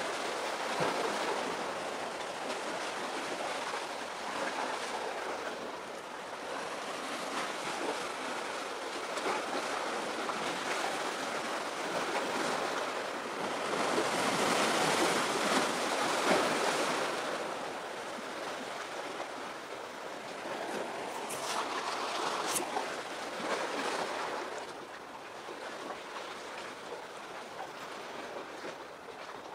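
Steady rushing noise of wind and sea surf, swelling louder about halfway through, with two brief ticks about a second apart some two-thirds of the way in.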